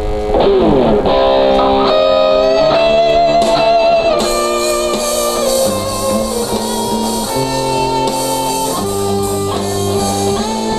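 Electric guitar through a multi-effects unit, recorded direct into a computer's onboard line-in and played back, playing a lead line. A downward slide comes just after the start, then held notes with vibrato.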